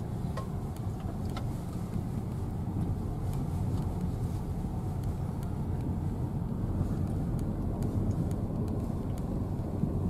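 Inside a car driving slowly on an unpaved dirt road: a steady low rumble of engine and tyres, with a few faint clicks.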